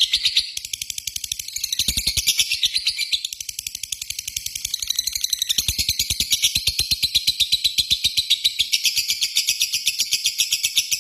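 Lovebird giving a long, rapid chattering trill, the 'ngekek' call: a fast, even string of high, shrill chips that stops abruptly at the end.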